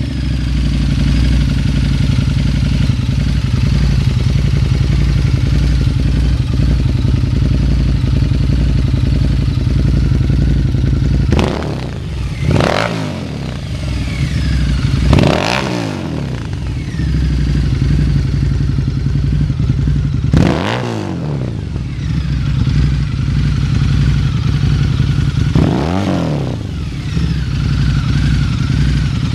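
Harley-Davidson V-Rod Muscle's 1250 cc liquid-cooled V-twin idling through Vance & Hines Competition Series slip-on mufflers, just after start-up. From about eleven seconds in, the throttle is blipped in five or so short revs that rise and fall back to idle.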